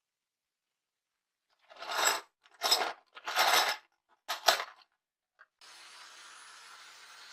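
Four short rasping scrapes on metal, then a steady hiss with a faint high whine starts about two seconds before the end.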